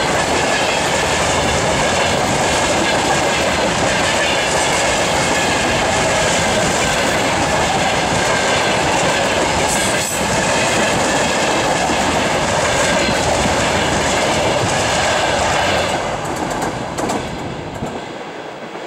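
Freight train of covered hopper wagons rolling past close by: steady rumble and clickety-clack of wheels over rail joints, with a thin high squeal from the wheels. The last wagon passes about sixteen seconds in and the sound fades away.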